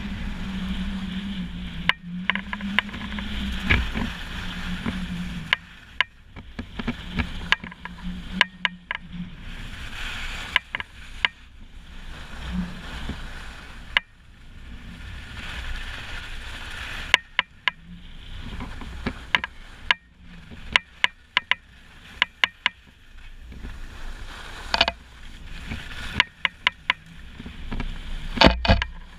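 Wind buffeting a GoPro HERO3+ camera's microphone while skiing: an uneven rushing noise with many sharp knocks and clicks. A steady low hum runs under it for the first several seconds.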